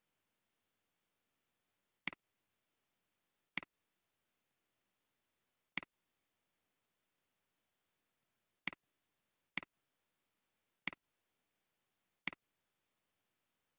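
Computer mouse clicking, seven separate clicks at uneven intervals, each a quick press followed by a softer release.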